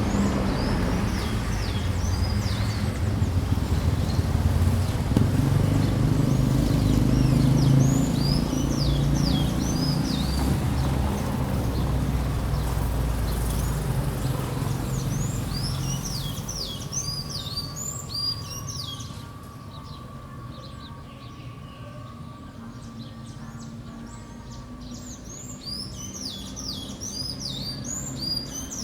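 Street ambience: a motor vehicle's low engine rumble passes and fades out a little past halfway. Small birds chirp in repeated bursts of quick falling notes throughout.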